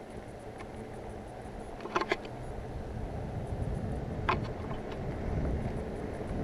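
Steady low rumble of a bicycle rolling on pavement with wind on the microphone, with a couple of sharp clicks about two seconds in and another about four seconds in.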